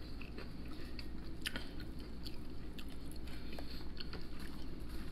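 A person chewing a mouthful of crispy battered fried seafood, with soft, scattered crunches and small wet mouth clicks.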